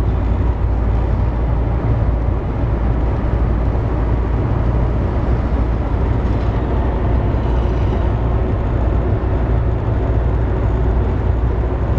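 Steady low rumble of engine and road noise inside the cabin of a moving passenger van.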